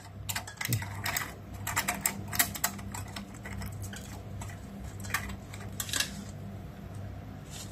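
Irregular light clicks and taps of fingers working small wires and metal terminals inside an opened rice cooker, as a wire jumper is twisted in place of its blown thermal fuse. A steady low hum runs underneath.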